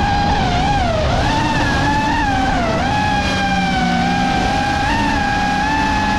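Brushless motors and propellers of a 5-inch FPV freestyle quadcopter whining, the pitch dipping and rising twice with throttle changes in the first few seconds, then holding steady, over rushing wind noise.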